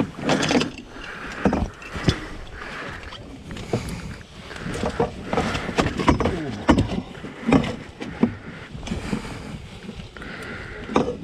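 Irregular knocks and thuds on the floor and sides of a small boat as a large pike is handled in a landing net on the boat floor, with the net and gear knocking against the hull.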